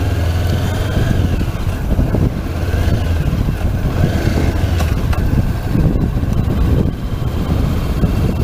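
Honda CB500X's parallel-twin engine running at low, steady revs as the motorcycle rolls slowly along a dirt road.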